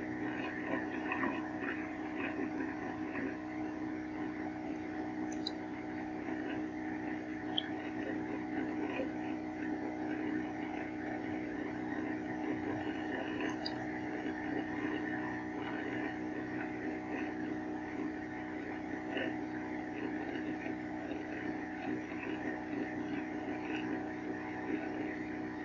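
Steady electrical hum and hiss of background noise, with a few faint ticks.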